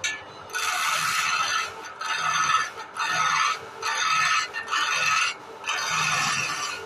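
Hand chisel cutting into a wooden blank spinning on a lathe: a rough, hissing scrape in about six separate passes of roughly a second each, with short pauses between them as the tool is lifted and set back.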